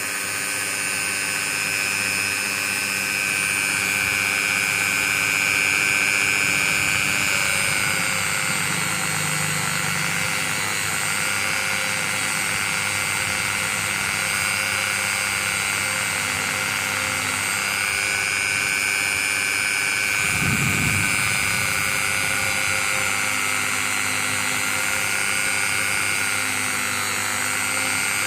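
Small high-speed electric motor running steadily with a high whine that drifts slightly in pitch, like a bench or rotary tool used in watch restoration. About twenty seconds in there is a brief low thump.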